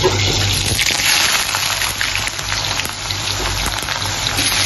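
Hot oil sizzling and crackling in a steel wok as sliced onions go into it, the sizzle growing louder about a second in and carrying on steadily.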